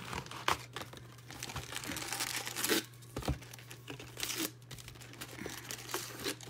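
Packaging of a sealed box of football trading cards crinkling and tearing as it is opened by hand: a string of short crackles and rustles.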